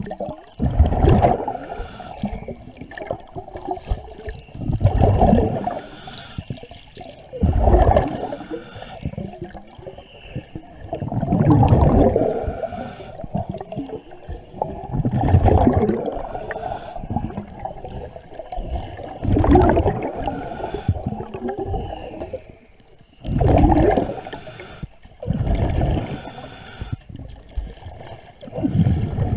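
Underwater recording of a diver's exhaled breath bubbling and gurgling in bursts about every four seconds. Between the bursts comes a fainter scraping of a hand scraper working fouling off the boat's hull.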